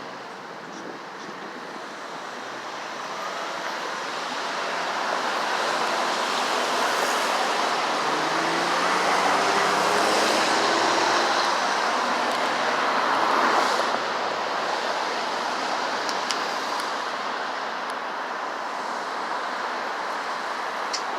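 Passing vehicle traffic: a steady rush of tyre and engine noise that swells to a peak about ten to fourteen seconds in, then eases off.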